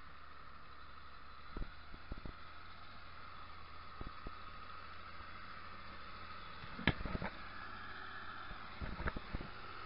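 Zetor 16145 tractor's six-cylinder diesel engine working steadily under load as it pulls a plough, growing slightly louder as it approaches. Several short sharp knocks cut through it, the loudest about seven seconds in.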